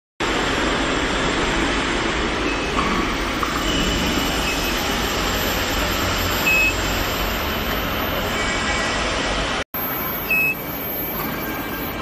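Steady machine noise of an induction weld preheating unit running in a workshop, with a faint high steady tone over it. Two short high electronic beeps come about six and a half and ten and a half seconds in, and the sound cuts out for an instant just before ten seconds.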